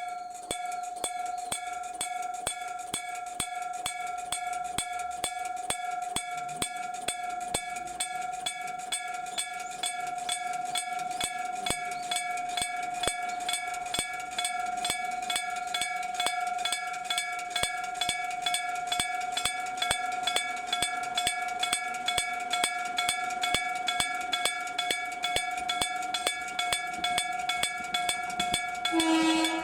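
Electric-bell (denshō-shiki) level-crossing warning bell, its hammer striking the gong in rapid, even strokes over a sustained ringing tone. It starts suddenly, the sign that the crossing has been activated for an approaching train. A short, lower tone joins near the end.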